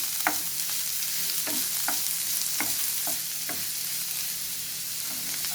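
Chopped onion sizzling in a little hot oil in a pan, a steady hiss, while being stirred, with about six short knocks of the stirring utensil against the pan.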